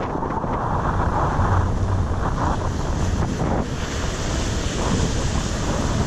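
Wind buffeting the microphone over the wash of surf breaking on a sandy beach; the surf hiss grows louder a little past halfway.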